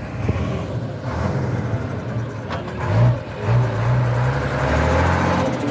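Mercedes-Benz Unimog fire truck's diesel engine running as it drives slowly past, growing louder from about three seconds in as it comes close.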